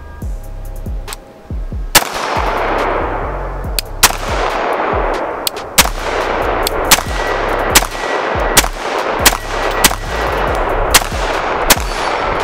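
Custom AR-style rifle fired in aimed single shots, about ten sharp cracks starting about two seconds in, spaced a second or two apart at first and coming faster toward the end.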